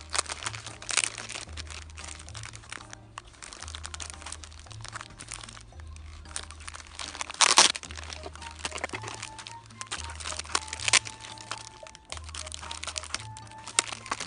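Plastic packaging crinkling and crackling as the pieces of a Beyblade set are unwrapped, with a sharp loud crackle about halfway through, over background music with a repeating bass line.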